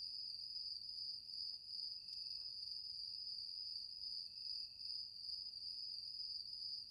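Crickets trilling steadily in one unbroken high-pitched drone.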